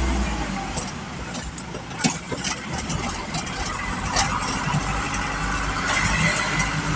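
Motor vehicle engines running at low speed, with traffic noise and a few short knocks.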